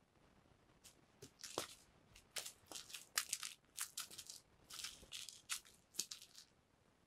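A wand cat toy's lure skittering and scraping across foam floor mats as it is flicked and dragged: a quick, irregular run of short scratchy rustles, starting about a second in and stopping about six and a half seconds in.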